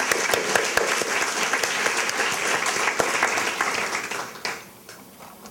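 An audience applauding: many hands clapping in a dense patter that dies away about four and a half seconds in.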